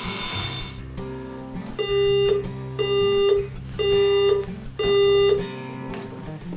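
An electronic alarm's ringing cuts off less than a second in as the snooze button is pressed. Organ-like keyboard music follows: four long, loud high notes held about a second apart over a lower accompaniment.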